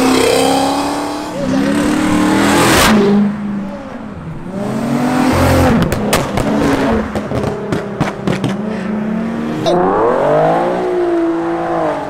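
Sports cars pulling away hard one after another, a Ford Mustang and then an Infiniti coupe, their engines revving up and down. A run of sharp exhaust crackles comes in the middle, and an engine revs up steeply near the end.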